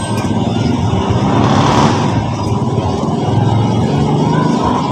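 Road traffic noise, swelling as a vehicle passes about two seconds in.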